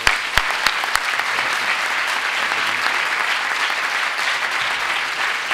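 Audience applauding. A few sharp single claps stand out in the first second, then the clapping goes on steady and even.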